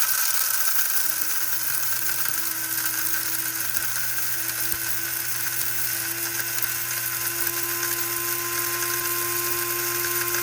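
Electric coffee grinder of a 4-in-1 single-serve coffee maker running steadily as it grinds coffee beans, a high motor whine over a steady hiss.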